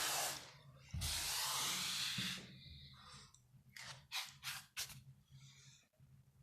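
Two long bursts of hissing about a second and a half each, then a quick run of about five short hisses near the end.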